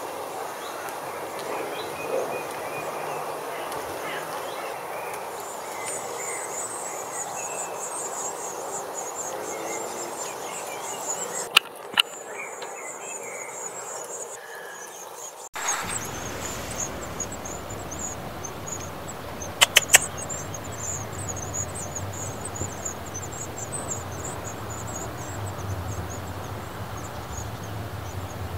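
Blue tit nestlings begging for food: a high, rapid chattering that sets in a few seconds in and carries on, over steady background noise, with a few sharp clicks, two just before the middle and a quick group of three about two-thirds through.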